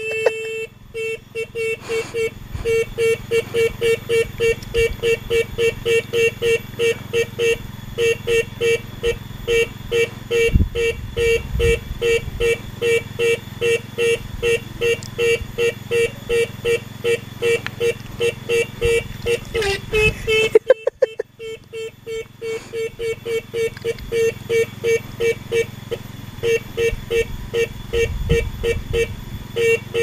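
Electric motorcycle horn sounding in short repeated beeps, about two a second, as its button is pressed over and over, with a brief pause about two-thirds of the way through.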